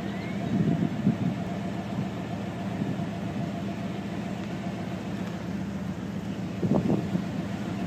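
Steady hum of a vehicle engine idling.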